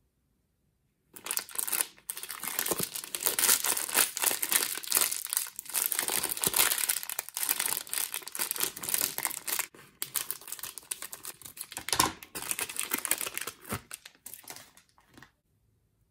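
Thin clear plastic wrapper crinkling and crackling as hands work it and tear it open. The crinkling starts about a second in and stops abruptly shortly before the end.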